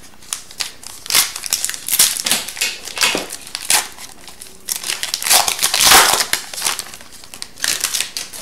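A foil hockey-card pack (Upper Deck Series 2 hobby pack) being torn open and its wrapper crinkled by hand. It comes as a run of crackling rustles, loudest a little past the middle.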